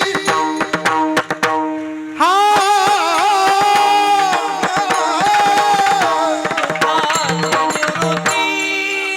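Varkari kirtan singing with mridang accompaniment: a male voice comes in about two seconds in with a long, ornamented sung phrase over a steady held drone, with regular mridang strokes throughout.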